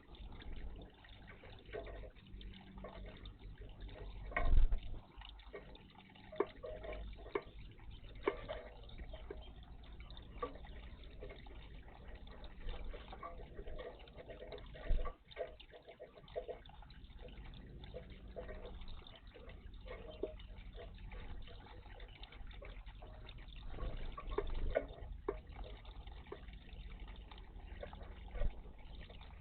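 Water splashing and dripping in a garden bird bath as small birds bathe, in irregular bursts with a few louder splashes.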